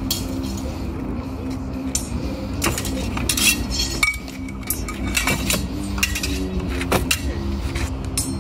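Steel swords clashing against each other and striking a frying pan used as a buckler: irregular metallic clanks and clinks, one blow leaving a short ring about four seconds in.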